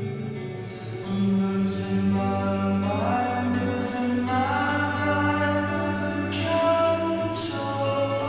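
Slowed-down, reverb-drenched pop-rock recording: a male voice sings long, drawn-out notes over sustained chords, with airy swells recurring every couple of seconds.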